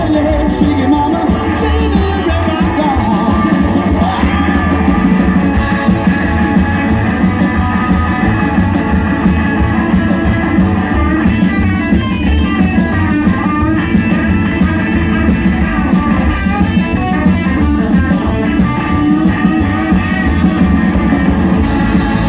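Live rock and roll band playing: electric guitar over bass and drums with a steady beat, and some singing.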